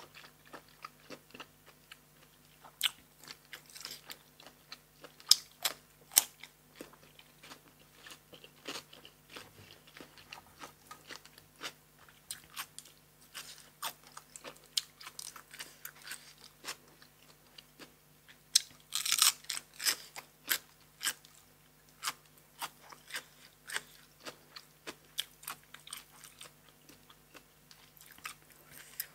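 Close-miked eating: a person biting and chewing blanched cuttlefish and crisp raw vegetables, making many irregular short crunches and wet mouth clicks, with a denser run of crunching about two-thirds of the way in.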